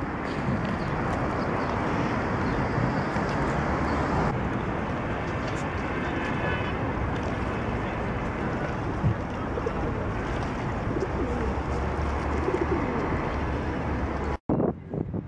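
A pigeon cooing over a steady rushing outdoor noise. The sound cuts off abruptly near the end.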